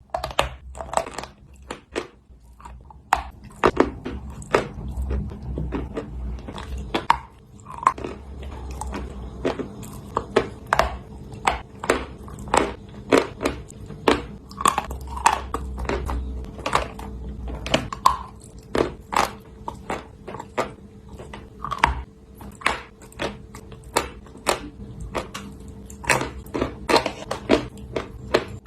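Wet chalk being bitten and chewed: a steady run of sharp crunches, about one or two a second.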